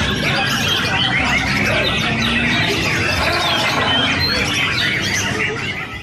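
Many caged songbirds singing at once in a contest, a dense chatter of overlapping whistles and chirps.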